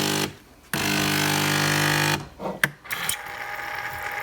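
Nespresso Creatista Plus running its automatic steam-wand purge to clean milk from the wand. The pump buzzes with a hiss of steam, pauses briefly and buzzes again for about a second and a half. A couple of clicks follow, then a steady jet of steam hisses with a faint whistle.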